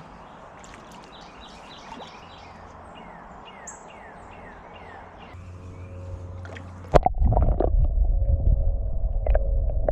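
A bird singing a run of quickly repeated, falling chirps over faint outdoor background noise. About seven seconds in, a loud muffled low rumble with a steady hum cuts in suddenly and becomes the loudest sound.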